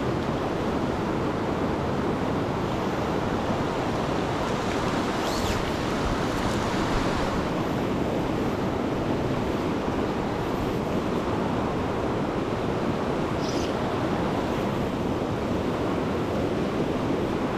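Steady rushing of a fast river running over rocks, with a couple of faint, brief high sounds about five and thirteen seconds in.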